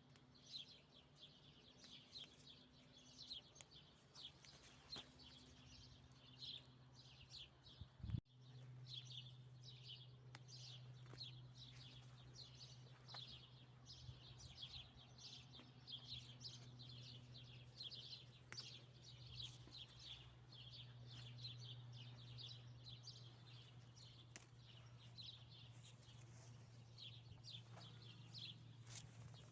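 Small birds chirping busily and continuously, over a faint steady low hum. A sharp click comes about eight seconds in, after which the hum is louder.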